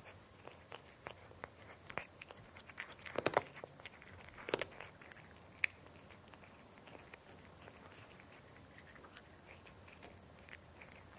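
A cat chewing crunchy dry food: irregular crisp crunches, loudest in two clusters about three and four and a half seconds in, then sparser and fainter crunching.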